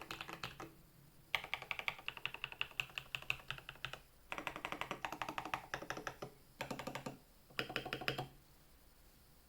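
Typing on a Rama Works U80-A mechanical keyboard with lubed Moyu Black linear switches: rapid keystrokes in several bursts with short pauses between, stopping about a second before the end.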